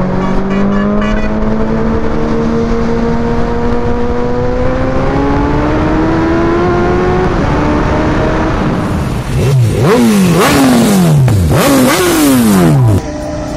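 Sport motorcycle engine pulling under acceleration, its pitch climbing slowly. From about nine seconds in it switches to a louder run of sharp throttle blips, each rev shooting up and falling back, before cutting off near the end.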